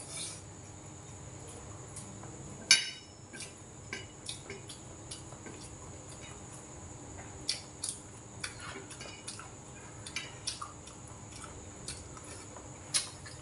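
A metal spoon and wooden chopsticks clinking against a glass rice bowl and small dishes while eating. The clicks are scattered, with the sharpest one about three seconds in and a busier run of taps later on.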